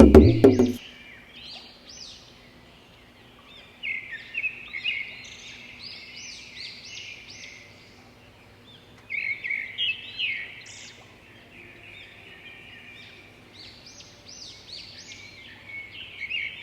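Birds chirping in bursts of quick, high, rising-and-falling notes, with quieter gaps between. A music cue cuts off just under a second in.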